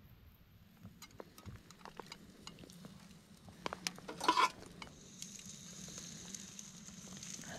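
Raindrops pattering on foil and a plastic food tray: scattered light ticks, with a soft hiss building after about five seconds. About four seconds in, the plastic tray of chicken fillets crinkles briefly as it is handled.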